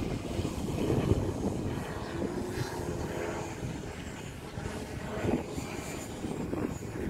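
Electric motor and 22x10 propeller of a large RC Extra 300 aerobatic plane running in a hover, the prop noise swelling and easing a few times with the throttle.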